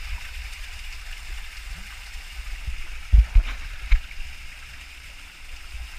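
Creek water cascading over boulders in a small canyon, a steady rushing splash. A couple of short, low thumps come about three seconds in.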